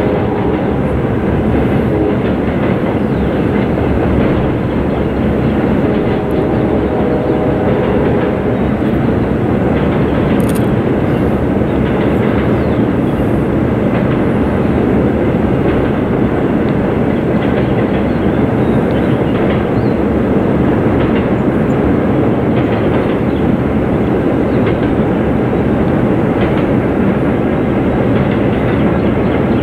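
Intermodal freight train of double-stack container cars rolling steadily across a steel deck-truss bridge, a continuous rumble and rattle of wheels and cars.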